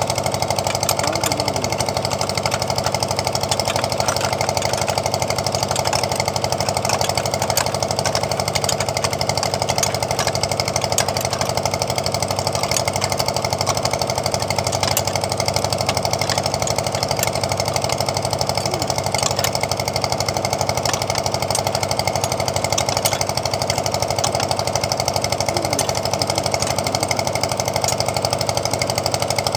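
A small engine running steadily at an even idle, with a rapid regular pulse over a low hum.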